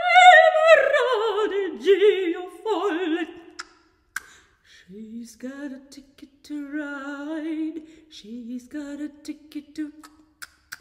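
Unaccompanied female voice singing: a high operatic soprano phrase with wide vibrato, sliding down in pitch over the first three seconds. After a short pause comes lower, plainer singing in short phrases, quoting a pop tune, with a few small clicks near the end.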